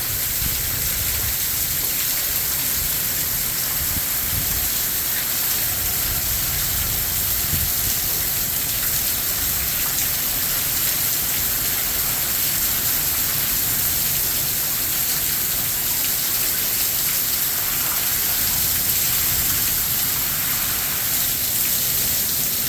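Heavy rain pouring steadily in a thunderstorm, an even hiss, with strong wind gusting against the microphone as a flickering low rumble underneath.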